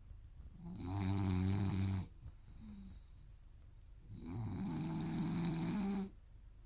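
A rooster snoring: two long, loud snores of about one and a half to two seconds each, roughly three seconds apart, with a shorter, softer breath between them.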